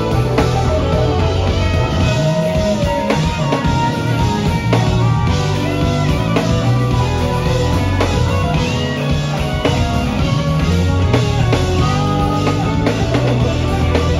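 Live band playing: drum kit with cymbals driving a steady beat under electric bass and electric guitar, with sustained, bending melodic lines on top.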